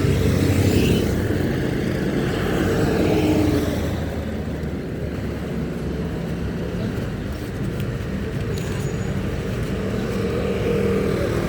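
Vehicle engines running steadily in street traffic, a low hum with no clear change.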